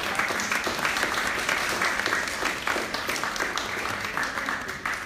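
Audience applauding: many people clapping together, a dense steady patter that dies away near the end.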